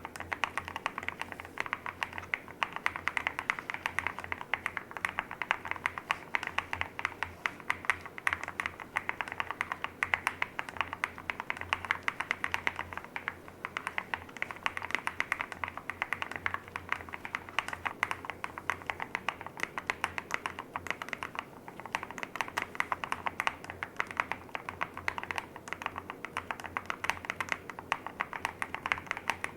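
Steady, fast typing on a custom mechanical keyboard, a Swagkey Transition LITE clear acrylic-case board fitted with Haimu RAW switches: a continuous patter of many keystrokes a second, easing off briefly a couple of times.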